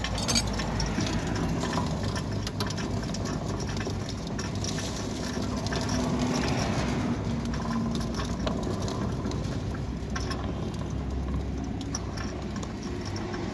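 Steel sliding gate pushed by hand along its track, its wheels rolling and the re-welded steel rack running over the gate motor's pinion gear, with scattered light clicks. The rack runs over the pinion without hopping.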